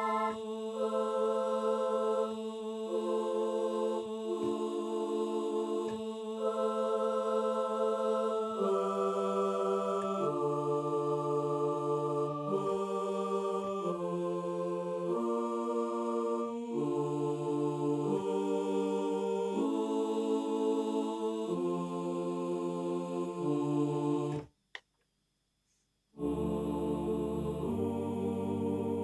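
Kurzweil K2000 synthesizer playing a choir-like voice patch dry, with no effects, in slow held chords that change every second or two. It stops about 24 seconds in, and after a short silence another patch starts playing chords near the end.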